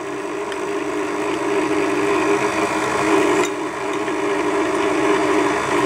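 Stand mixer's electric motor running steadily, its flat beater turning through almond cream in a steel bowl.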